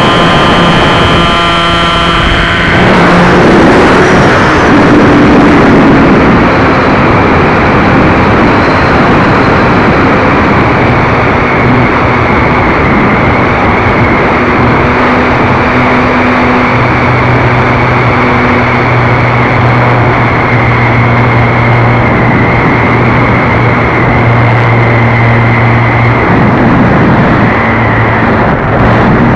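Motor and propeller of an RC model Cessna 400 Corvallis running steadily, heard from a keychain camera on its tail with heavy wind rush over the microphone. The pitch of the tone shifts about three seconds in, then holds.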